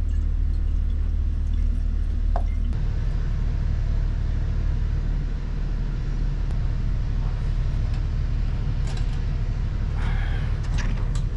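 Steady deep rumble of running machinery, with a few faint clinks and knocks near the end.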